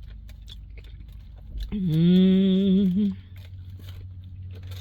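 A woman eating and humming one long, slightly wavering "mmm" of enjoyment, starting a little under two seconds in and lasting just over a second. Small chewing clicks and crunches come before and after it.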